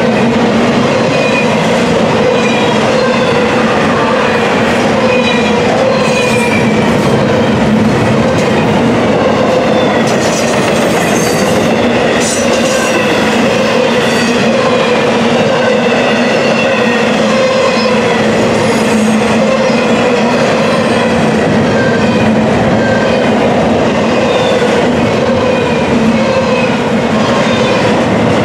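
Double-stack intermodal container cars of a freight train rolling past, a steady loud rumble of steel wheels on rail with clickety-clack. Short, high wheel squeals come and go throughout.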